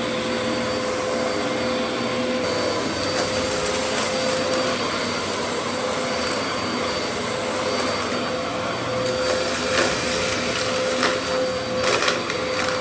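Dyson DC07 upright vacuum cleaner running steadily: an even motor noise with a steady whine, with a few short sharp clicks near the end.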